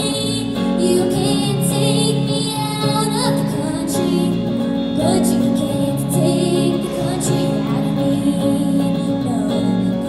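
A young girl singing live while strumming an electric guitar through a small amplifier.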